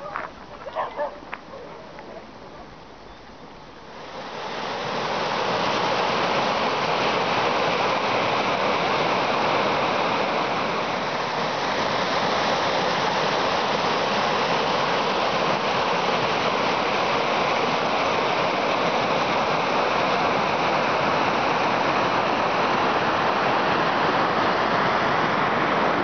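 Rushing mountain stream pouring over rocks: a loud, steady rush of water that swells in about four seconds in and holds.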